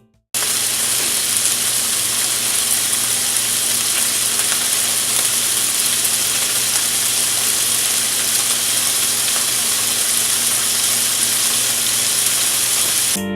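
Bacon strips sizzling steadily as they cook, with a faint low hum underneath; the sizzle starts abruptly just after the start and cuts off at the end.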